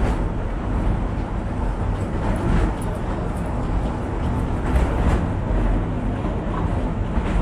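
Tramway du Mont Blanc electric rack-railway train running along its metre-gauge rack track: the steady running noise of the railcar and its wheels, heard from on board, with a few faint clicks.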